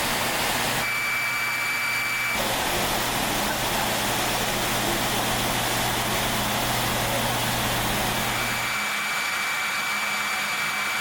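Steady industrial machinery and ventilation noise: a rushing air sound with a low hum and a faint high whine. It changes abruptly about a second in, again at about two and a half seconds, and near nine seconds.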